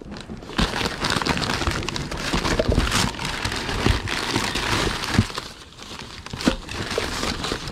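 Paper crinkling and rustling as a box of plates is unpacked by hand, with a few sharp knocks.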